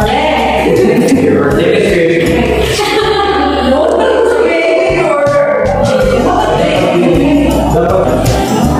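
Background music with singing voices.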